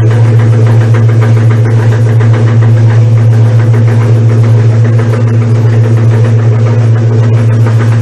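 Old Brastemp Luxo washing machine running: a loud, steady motor hum.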